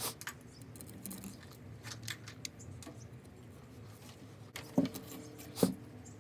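Hands handling yarn and craft materials: light rustling and scattered small clicks, with two sharper knocks near the end.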